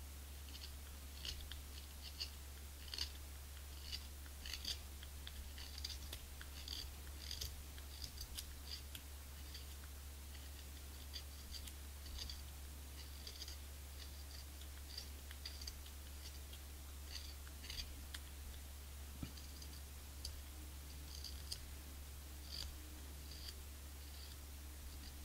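A knife shaving a piece of cane into a clarinet reed blank: short, light, dry cutting strokes, irregular at about one or two a second, thinning out twice for a moment.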